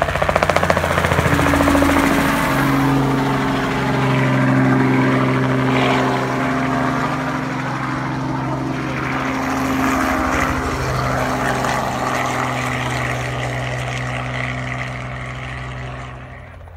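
Crop-spraying helicopter flying low and passing close: loud rotor chop over a steady engine hum. It fades as the helicopter moves away, then drops off sharply near the end.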